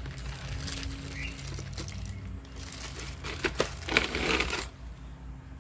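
Packaging rustling and crinkling as it is handled, with a few sharp clicks about three and a half seconds in and a louder rustle just after.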